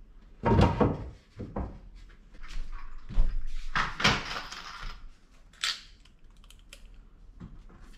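Wooden knocks and thuds from boards of a slatted bed base being handled and fixed in place. There are several separate hits, a scraping, rustling stretch in the middle, and a few small clicks near the end.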